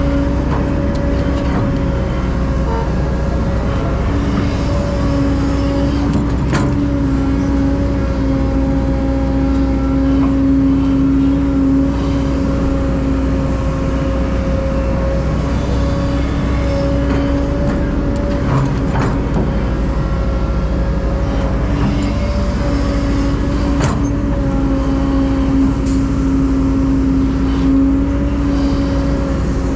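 Heavy diesel engine of an excavator or dump truck running at a steady speed, with a few sharp knocks scattered through it.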